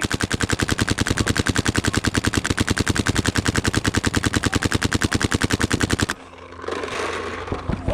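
WGP SuperStock Autococker paintball marker firing a rapid, even string of shots, about ten a second, for about six seconds, then stopping abruptly. Rustling movement follows.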